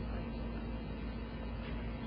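Faint, indistinct voice over a steady low hum.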